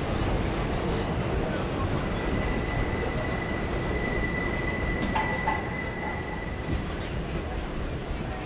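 Subway train running on the rails, a steady rumble under a high, drawn-out wheel squeal; a second, lower squeal tone joins about two seconds in and drops out about five seconds in.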